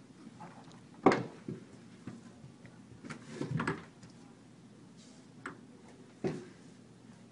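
Scattered thuds and scuffs of a person getting down onto a carpeted floor and crawling on hands and knees. The loudest thud comes about a second in, with a longer scuffling stretch around three to four seconds in.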